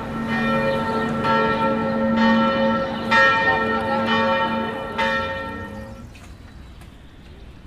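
Church bells ringing in a quick peal of several pitches, about two strikes a second, dying away about six seconds in.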